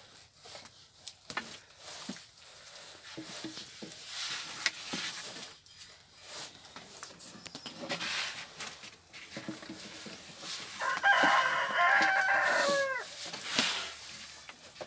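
A rooster crows once about eleven seconds in, a call of about two seconds that drops in pitch at the end. Around it are scattered light knocks and rubs of yufka dough being rolled out with a long wooden rolling pin on wooden boards.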